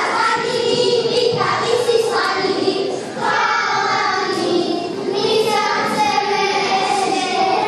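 A group of children singing a folk song together.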